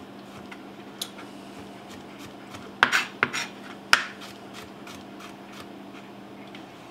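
Chef's knife chopping mushroom stems on a plastic cutting board: a few scattered knocks of the blade on the board, the loudest about three and four seconds in, over a faint steady low hum.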